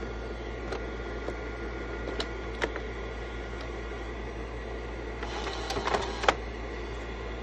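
Vivitar 3000AF slide projector running with a steady hum from its cooling fan and a few light clicks. About five seconds in, the slide-change mechanism cycles with a short run of whirring and clicking, ending in a sharp clack just after six seconds.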